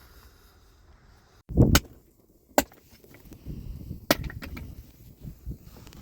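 A dull thud about a second and a half in, then two sharp knocks about a second and a half apart, with rustling handling noise between and after them.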